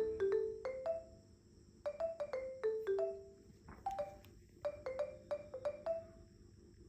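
Background music: a light, sparse melody of short, bell-like struck notes, each ringing briefly and fading.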